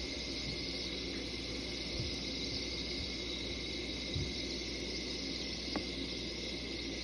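Aquarium air stone bubbling steadily underwater, a soft even hiss, with a few faint dull knocks and a small click near the end.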